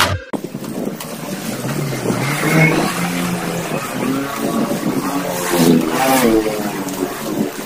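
Street traffic heard from a moving bicycle: motor vehicles running past, their engine pitch rising and falling, over steady road noise. The passes are loudest about two and a half seconds in and again about six seconds in.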